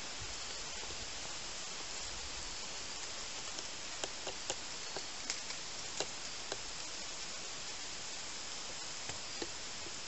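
Steady hiss of quiet outdoor background, with a run of short sharp clicks and snaps about four to six and a half seconds in and two more near the end.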